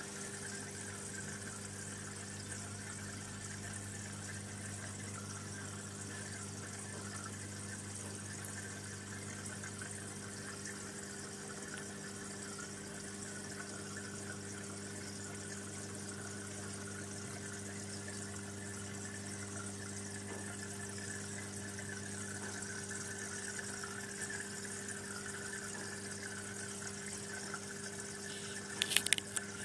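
Aquarium pump humming steadily with a constant trickle and bubble of water. A few sharp clicks come near the end.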